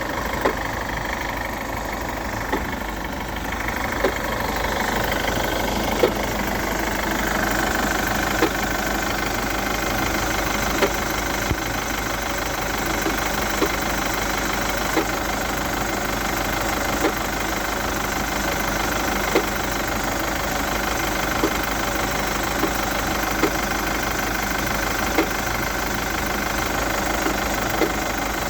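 Chevrolet Captiva 2.2 diesel engine idling steadily, with a sharp knock standing out irregularly about every one to two seconds. The owner suspects the knock comes from the timing chain drive.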